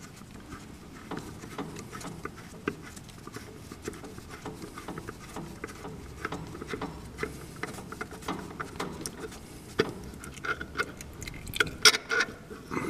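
A thin stream of hydraulic fluid pattering into a drain pan as the hydraulic screen plug is unscrewed by hand, with small irregular clicks from fingers on the plug. A few sharper clicks come near the end as the plug works loose.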